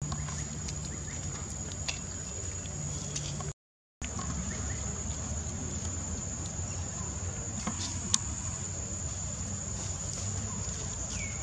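Steady high-pitched insect drone over a low outdoor rumble, with a few faint clicks and one sharp click about 8 seconds in. The sound drops out for half a second about 3.5 seconds in.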